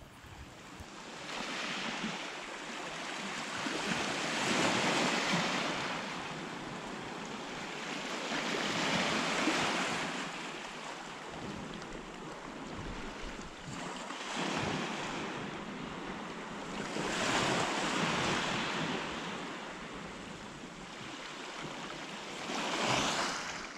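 Black Sea surf washing onto the shore, swelling and falling back about every four to five seconds.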